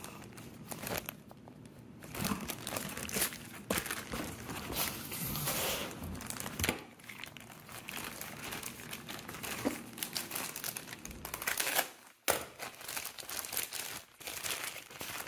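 Plastic packaging bag crinkling and rustling as gloved hands pull a part out of it and unwrap it, a steady run of irregular crackles with a brief pause about twelve seconds in.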